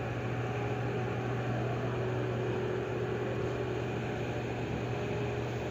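Floating crane's machinery running at a steady drone, with a low hum and a faint steady whine above it.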